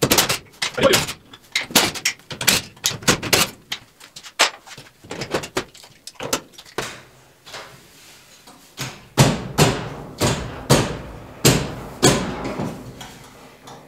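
Irregular metal clunks and knocks, some with a short ring, as a radiator is handled and worked into place in the front end of an old pickup truck.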